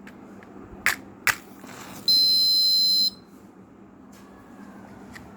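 Piezo buzzer of a NodeMCU ESP8266 fire-alarm circuit giving one loud, steady, high-pitched beep about a second long: the alarm going off. Two sharp clicks come just before it.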